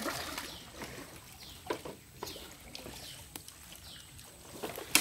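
Water splashing and sloshing around people wading through a shallow muddy stream, with a bird calling in short, repeated downward-sliding notes. A sudden louder splash comes near the end.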